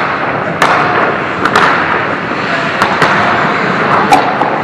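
Ice hockey play: a steady scrape of skates on the ice, broken by several sharp clacks of sticks and puck, the loudest about four seconds in.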